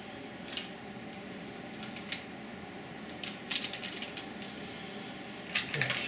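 Hard objects being handled and set down: scattered light clicks and clacks, a cluster of them about three and a half seconds in and another near the end, over a steady low hum.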